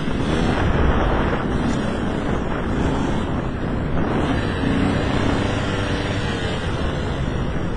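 Heavy wind buffeting the microphone over an enduro motorcycle engine revving up and down as it rides. The wind noise is the loudest sound.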